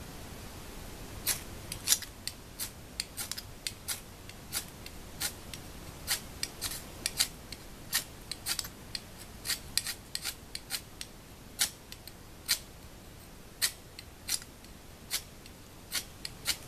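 Ferrocerium fire-starter rod scraped hard again and again, about two sharp rasps a second beginning about a second in, throwing plenty of sparks.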